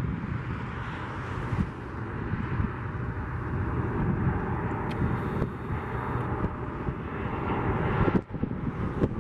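Twin jet engines of a Boeing 737 airliner running at low approach power as it passes close on final approach with gear down, mixed with gusty wind buffeting the microphone. The sound drops off suddenly for a moment near the end.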